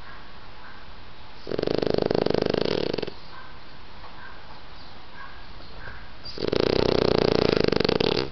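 A dog snoring while asleep: two long snores about five seconds apart, each lasting a second and a half to two seconds, with a fast flutter.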